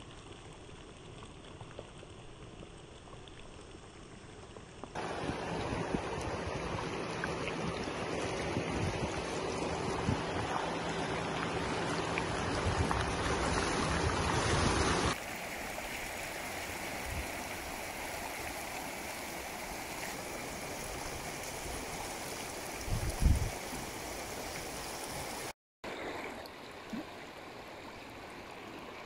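Floodwater rushing down a wadi in a flash flood: a steady rushing noise that changes in level at each cut between clips, loudest in the middle stretch. A brief low thump about 23 seconds in.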